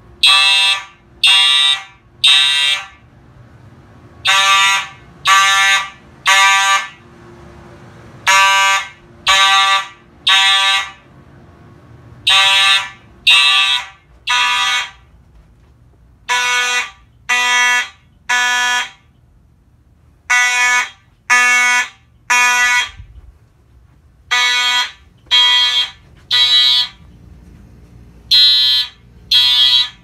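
Simplex fire alarm horns sounding together in the temporal-three evacuation pattern: three blasts about a second apart, then a pause, repeating steadily. The system is in alarm after its manual pull station was pulled.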